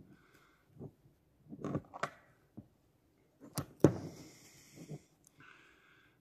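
Irregular small metal clicks and taps: a steel pick and a small screwdriver working the piston-pin circlip on a Stihl MS 150 TC piston, turning the clip in its groove. The sharpest click comes about four seconds in.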